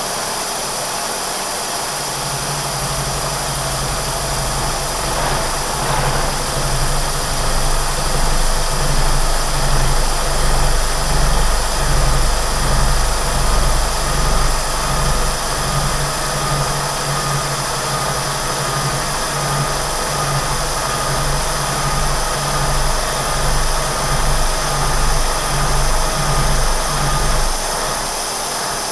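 Kearney & Trecker horizontal milling machine running, its staggered-tooth cutter taking a 7/16-inch-deep cut under power feed. A low, pulsing cutting rumble that swells about once a second comes in about two seconds in and stops near the end, over the machine's steady running noise.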